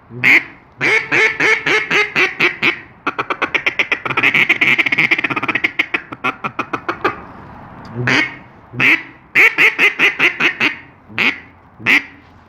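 A polycarbonate Echo duck call, hollowed out inside with a drill, blown as quacks. A run of separate quacks is followed in the middle by fast, clucking chatter of about ten notes a second, then a few more single quacks.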